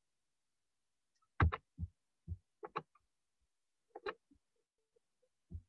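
A string of short, sharp clicks and taps, about eight over four seconds with dead silence between, from a computer being operated to start screen sharing in a video call.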